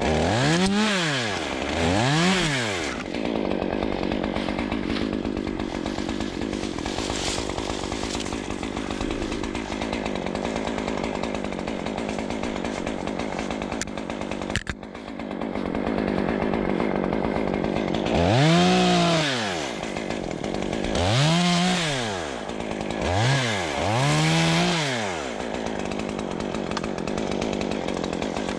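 Stihl two-stroke chainsaw running steadily, revved up and back down twice at the start and four more times in the second half.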